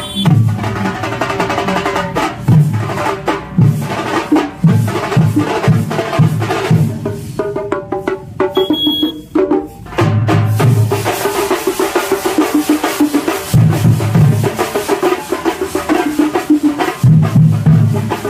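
A marching drum troupe beating stick drums together in a fast, driving rhythm: rapid sharp strokes over heavy deep beats. The drumming thins out briefly about eight seconds in, then comes back at full strength.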